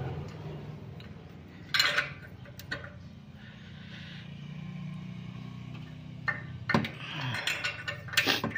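Metal clinks and knocks of a ring spanner fitted onto a car's exhaust oxygen sensor to work it loose. The loudest clink comes about two seconds in, with several more near the end, over a low steady hum.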